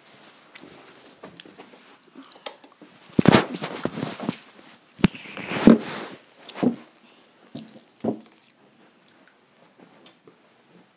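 Handling noise from a handheld camera being carried and set down: close fabric rustles and scrapes against the microphone, with a sharp knock about five seconds in and a few softer bumps after it.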